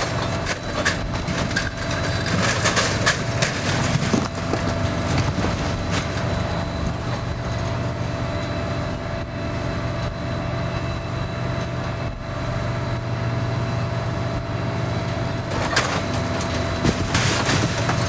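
Demolition crane with a clamshell grab, its engine running steadily with a low hum, while debris crashes and clatters as the building is pulled down; the crashes come thickest in the first few seconds and again near the end.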